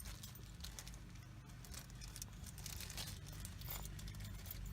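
Faint rustling and small, irregular clicks of hands handling parts and tools, over a steady low hum.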